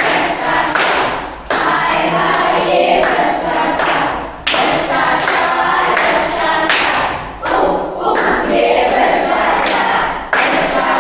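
A group of children singing together in chorus while clapping and stamping in rhythm.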